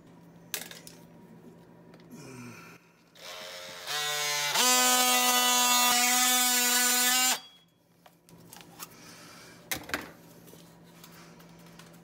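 DeWalt 20V MAX XR cordless oscillating multi-tool cutting through a plastic sink drain tailpiece: a steady buzz that starts lower, steps up in pitch and loudness about a second later, runs for about three seconds and cuts off. A few clicks of handling the pipe come before and after.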